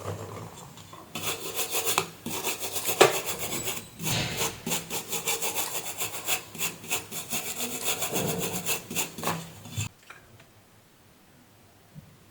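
Rapid back-and-forth rasping strokes, several a second, starting about a second in and stopping abruptly near ten seconds, with one sharper knock about three seconds in.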